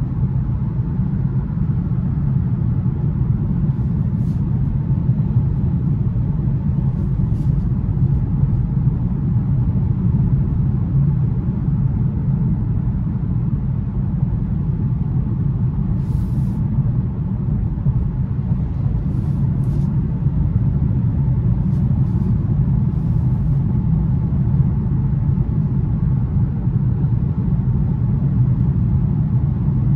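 Steady low cabin rumble of a 2021 BMW 530i xDrive cruising at highway speed, road noise and engine heard from inside the car.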